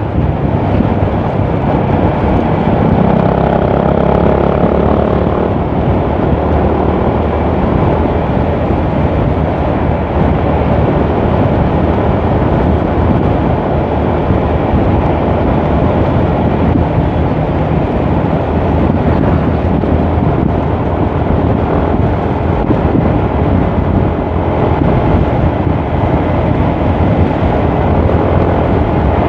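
Yamaha MX King 150 motorcycle with a modified aftermarket exhaust, its single-cylinder four-stroke engine running steadily at road speed, heavily mixed with wind rushing over the microphone.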